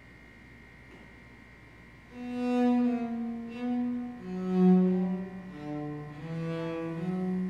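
A faint steady high tone, then about two seconds in a large bowed string instrument starts playing a slow line of sustained notes that move between low and middle pitches.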